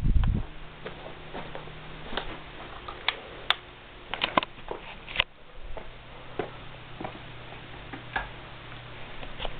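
Broadmoor Limited ceiling fan running with a steady low motor hum and irregular light ticks, roughly one a second. There is a dull thump right at the start.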